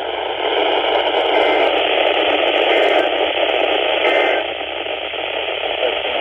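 Steady hiss of radio static from a NOAA weather radio receiver's speaker, with no voice on the channel. The hiss is a little louder from about half a second in until about four seconds in.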